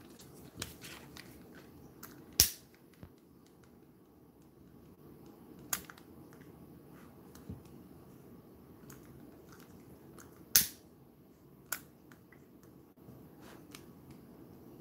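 Sharp clicks from the spark igniter of a flexible-neck lighter, a handful at uneven intervals, the two loudest about eight seconds apart, over faint room noise.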